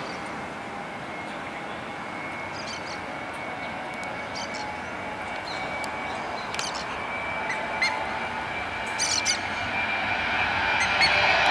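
Boeing 737's twin jet engines at takeoff thrust, growing steadily louder as the airliner rolls toward the listener and lifts off, with a high steady fan whine over the rush. Birds chirp briefly several times.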